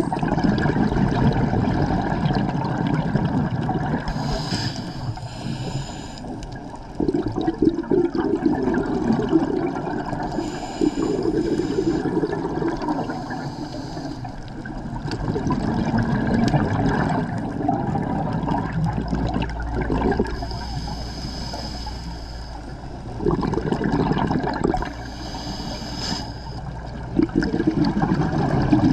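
Scuba diver breathing through a regulator underwater: a hiss on each inhale and a gurgling rush of exhaled bubbles every few seconds.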